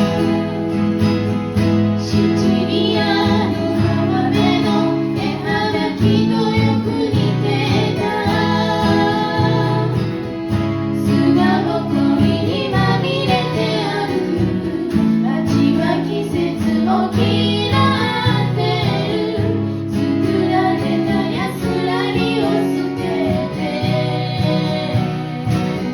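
Acoustic guitar strummed under a voice singing a song.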